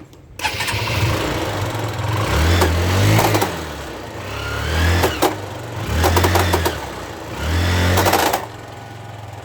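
Motorcycle engine revved in about four surges, with sharp clicks from the drive chain during each surge. The clicking is the chain slipping over a worn-out front sprocket, with the whole chain and sprocket kit worn.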